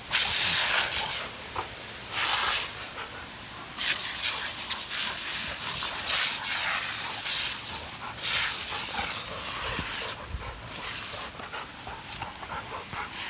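Rottweilers playing right by the microphone: repeated short bursts of hissing noise, roughly every one to two seconds.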